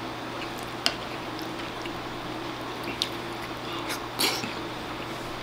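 A person eating mapo tofu from a wooden spoon: a couple of small sharp clicks, then a short wet mouth noise as a spoonful is taken a little after four seconds in, over a steady low hum.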